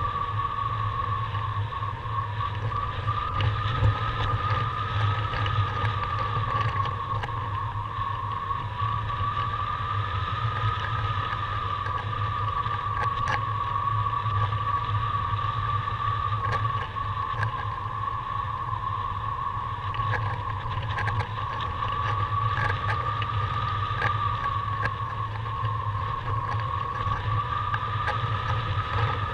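Airflow rushing over the microphone of a camera on a flying paraglider, a steady low rumble, with a steady whistling tone that slowly wavers up and down in pitch.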